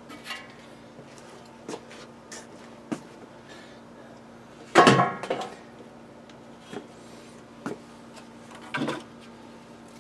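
Old metal Cisco router case being handled as it is cleaned out: scattered clicks and knocks, with one louder clatter about five seconds in.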